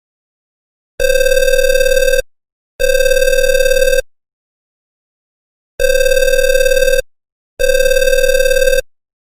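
Telephone ringing in a double-ring pattern: two rings of just over a second each with a short gap, a longer pause, then another pair. Each ring is a steady pitched tone.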